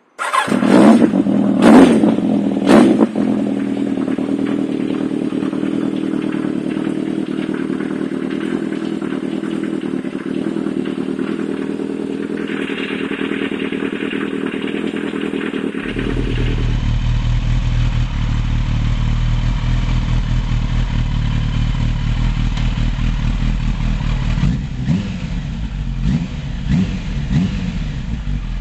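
Kawasaki GPZ1000RX's inline-four engine catches and revs sharply twice, then settles to a steady idle. After a cut it idles again, deeper and fuller, with a few short throttle blips near the end.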